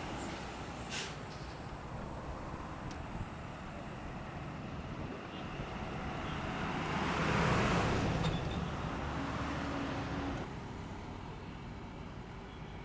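Highway traffic with buses, trucks and cars passing: a steady road rumble with a short hiss about a second in, then one vehicle passing close and loud, rising and falling. After about ten seconds it cuts to quieter traffic.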